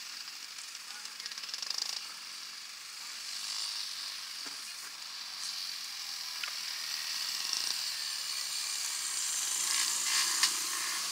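Dirt-bike engines running on a snow race course as one bike rides past the finish. The sound grows from a few seconds in and is loudest near the end.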